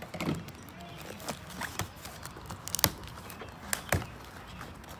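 Kitchen shears cutting the packing tape on a cardboard box: scattered sharp clicks and taps of the blades and hands against the cardboard, the loudest a little under three seconds in, over a low rustle.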